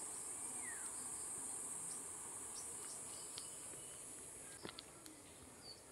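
Faint outdoor ambience: a steady high-pitched insect drone over an even, quiet rushing that sounds like a distant waterfall. The insect drone weakens a little after about four and a half seconds, and a few faint clicks come near the end.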